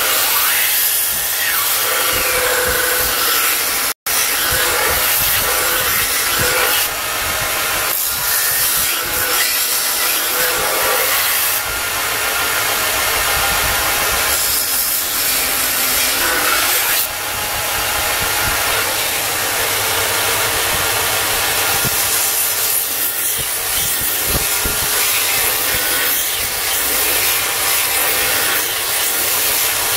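Belt grinder running with a forged steel kitchen knife blade pressed against the abrasive belt: a steady, loud hissing grind that rises and eases as the blade is worked. It cuts out for an instant about four seconds in.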